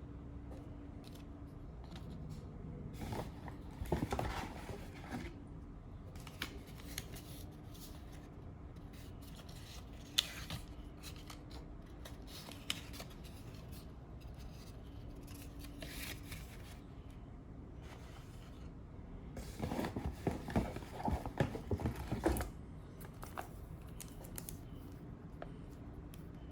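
Packaging being opened by hand: scissors cutting, with cardboard and wrapping rustling and scraping. It comes in two busier stretches, about four seconds in and around twenty seconds in, with scattered small clicks between.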